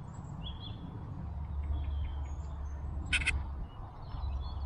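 Birds calling: scattered short chirps and a sharp double call about three seconds in, over a low wind rumble on the microphone.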